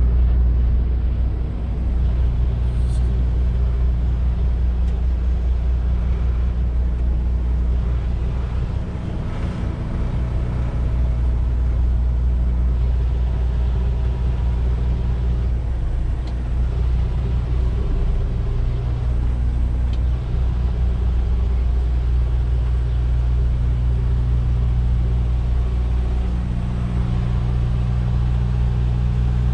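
Semi-truck's diesel engine running steadily at low revs while the tractor-trailer is slowly reversed into a loading dock.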